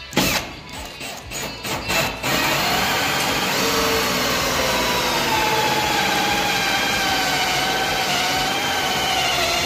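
Milwaukee cordless drill turning a hole saw to bore a lock hole through a door: a few short trigger bursts in the first two seconds, then about seven seconds of steady cutting with a whining motor under load, which then stops.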